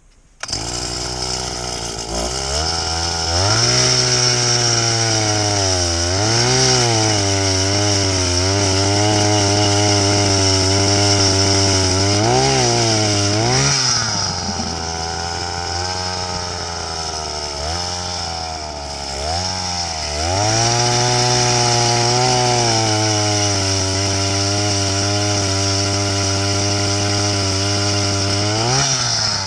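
An ice auger's engine running under load while drilling holes through lake ice, its speed rising and falling several times as it bites and eases off.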